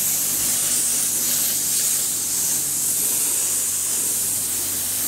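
High-pressure car-wash lance spraying water onto the back of a van: a steady hiss, with a faint steady low hum underneath.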